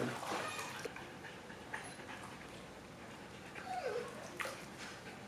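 A German shepherd gives one short, falling whine about four seconds in, over quiet background noise.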